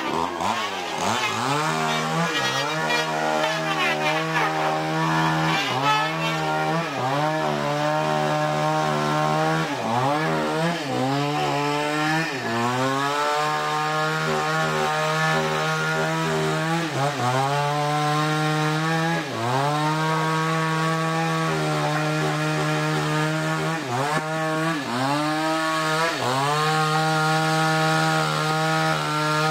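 Chainsaw running at high revs while cutting wood, its pitch dipping sharply and climbing back every few seconds as it works through the cut.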